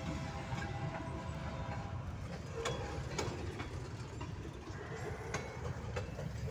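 Freight train cars rolling past with a steady low rumble, and a few sharp clacks of steel wheels striking rail joints.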